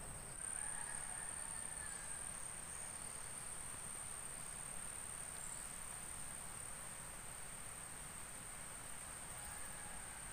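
Insects calling outdoors: a steady, unbroken high-pitched trill held without a pause, over faint background hiss.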